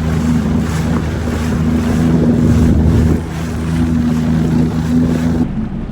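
Jet ski engine running at a steady pace on open water, with wind buffeting the microphone. There is a brief dip in level about three seconds in.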